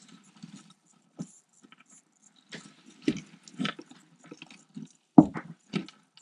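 Irregular rustling, crackling and clicks of bark-chip substrate shifting under a toad as a garter snake swallows it, with a louder crunch about five seconds in.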